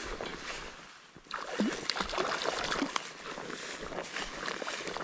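A hooked trout splashing at the surface close to the bank as it is played in: irregular sloshes and splashes starting about a second in, after a softer rush of water.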